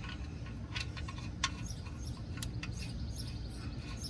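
Quiet outdoor background: a steady low rumble with a few sharp faint clicks and short high bird chirps.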